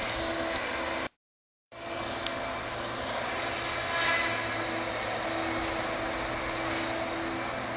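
Steady engine drone with a constant low hum. It cuts out completely for about half a second near the start, and there is a sharp click about two seconds in.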